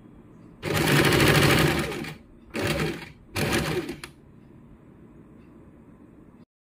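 Electric sewing machine stitching gold braid trim onto fabric in three runs: one of about a second and a half, then two short bursts, each a fast rattle of needle strokes.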